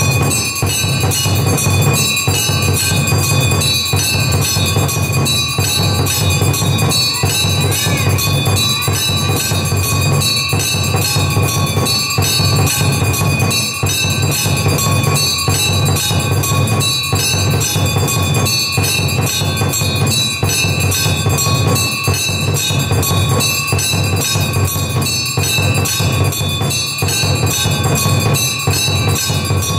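Temple bells ringing rapidly and continuously over a dense, clattering din, the accompaniment of an aarti.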